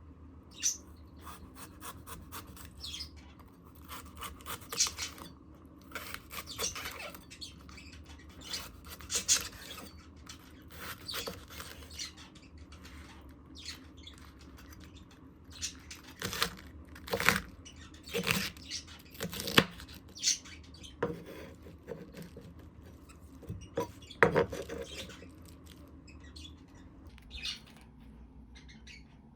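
Food-preparation handling sounds: irregular scraping and rubbing with occasional squeaks and light knocks of utensils, the sharpest taps coming about two-thirds of the way through.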